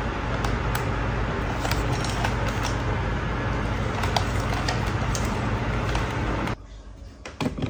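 A steady hiss with a low hum under faint, scattered plastic clicks as a CSM Kabuto Zecter toy belt is handled and turned over. The hiss cuts off suddenly near the end.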